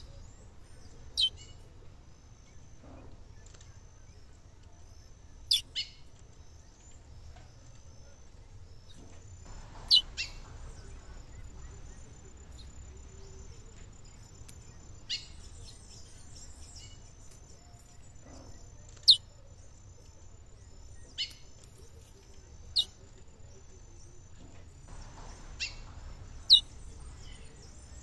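Female curió (lesser seed-finch) giving short, sharp call notes that slide quickly downward, about a dozen spaced a few seconds apart, some in quick pairs.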